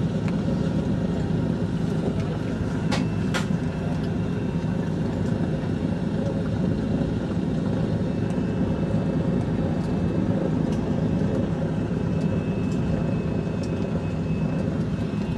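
The twin radial piston engines of a Douglas DC-3 Dakota running steadily, heard from inside the cabin. Two short sharp clicks come about three seconds in.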